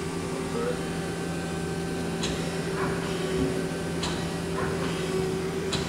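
CNC turning center humming steadily at idle with its spindle stopped. Three light clicks come about two seconds apart.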